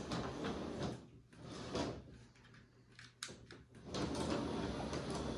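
Motorized Gauge 1 model diesel locomotive running along the track. It goes quiet about a second in, a few sharp clicks follow, and it runs again from about four seconds in.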